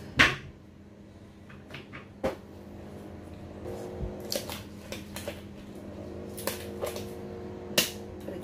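Handling noise as disposable gloves are pulled on over the hands, with small rustles and ticks. There are sharp clicks just after the start, about two seconds in and near the end, over a faint steady hum.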